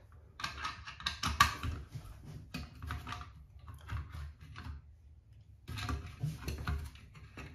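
Rapid light clicking and scraping of a screwdriver turning a mounting screw into a chrome shower valve trim plate, the metal plate tapping and rubbing on the wall tile. There are two bursts of clicks with a quieter pause in the middle.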